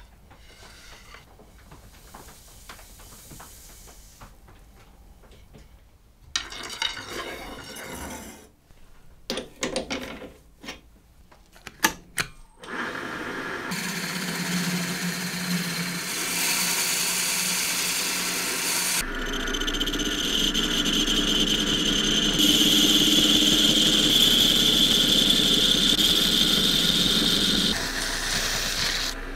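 Light knocks and clatter as the wooden cues are handled, then a Paulimot PM190-V bench lathe starts and runs steadily, spinning a wooden billiard cue while sandpaper rubs along it. Later the sound grows louder, with a high steady whine, and it eases off near the end.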